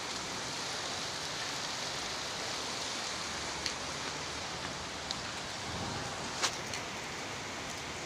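Steady hiss of heavy rain falling, with a few short sharp ticks; the loudest tick comes about six and a half seconds in.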